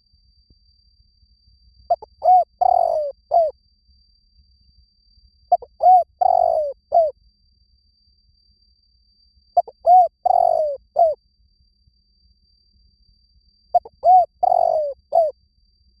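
Spotted dove cooing: four phrases of several coos each, about four seconds apart.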